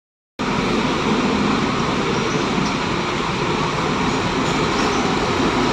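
Steady rumble of large diesel bus engines running, cutting in a moment after the start.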